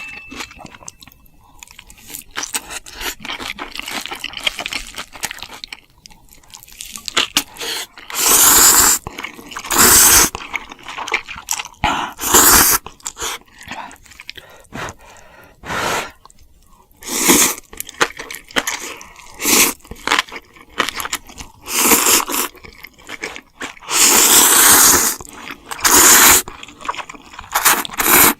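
Close-miked eating: loud crunching bites and chewing of crisp food, coming in irregular bursts, heavier in the second half.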